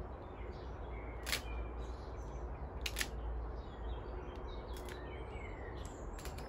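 Outdoor ambience of small birds chirping over a steady low rumble, with two sharp clicks, about one and a half seconds and three seconds in.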